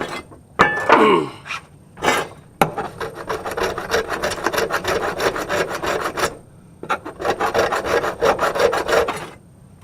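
A brass faucet fitting being filed in rapid back-and-forth strokes, in two runs of about four and two seconds, taking off the surface to show the yellow brass beneath.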